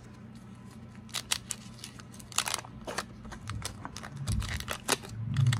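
A 1986 Fleer wax-paper card pack being handled and torn open: a run of sharp, irregular crinkly clicks starting about a second in, over a faint low hum.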